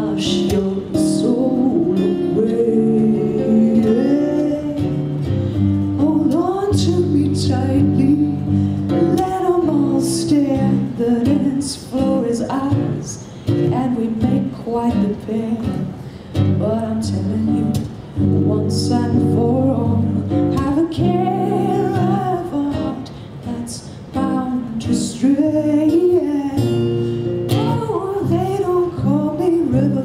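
A woman singing a folk song to her own strummed acoustic guitar.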